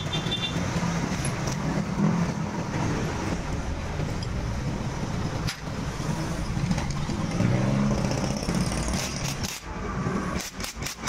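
Steady rumble of road traffic. Near the end come several short, sharp bursts from an impact wrench on the cylinder-head nuts of a Honda CB125 engine being stripped down.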